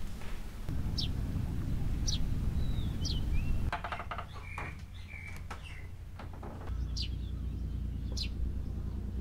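Small birds chirping outdoors: short, sharp, high notes sliding downward, repeated roughly once a second, over a steady low rumble of outdoor ambience. A few light clicks and brief chirps fill the middle.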